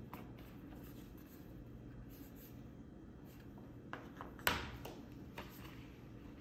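Quiet handling of a phone case and sticker sheets: faint rustles and small taps of fingers pressing stickers down, with one sharper knock about four and a half seconds in as the case is set down on the table.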